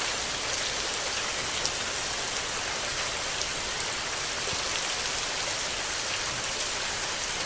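Steady rain falling, an even hiss with a few scattered drop ticks standing out.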